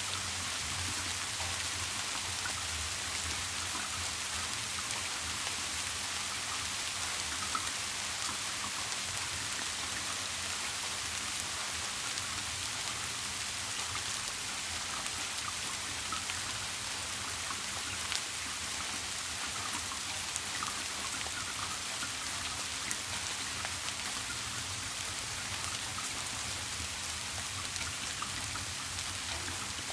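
Steady rain falling, an even hiss with scattered ticks of individual drops, over a low steady hum.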